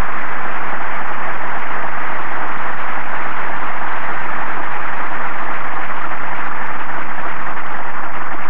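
A large crowd applauding steadily, with dense and even clapping.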